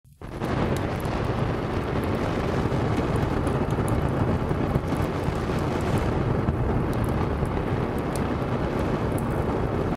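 A steady rumbling, rushing noise effect with a few faint crackles scattered through it; it starts and cuts off abruptly.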